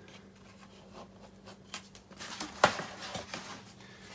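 A dull knife blade cutting through poster board on a cutting mat: a series of faint, short scratchy strokes, with one sharper click about two and a half seconds in.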